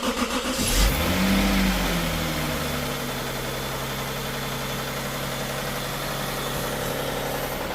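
Six-cylinder engine catching about a second in, its revs briefly rising and falling back, then settling into a steady idle. It is running with oil pressure restored after a clogged oil pickup starved it and seized the oil pump.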